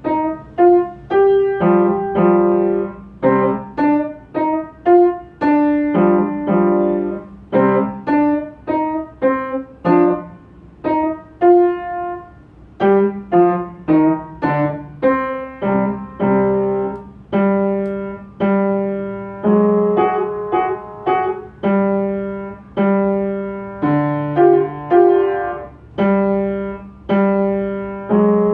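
Solo piano playing a steady rhythm of struck notes and chords, each note ringing and then fading.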